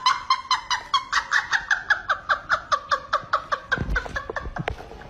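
A man laughing hard in a fast run of short, high-pitched bursts, about five or six a second, fading out after about four seconds. A few dull thumps from the cardboard box being knocked about come in near the end.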